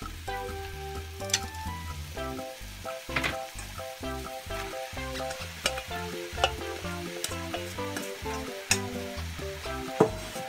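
Cabbage and leek sizzling in a frying pan over high heat while they are stirred with chopsticks, with several sharp clicks of the utensils striking the pan. Light background music plays over it.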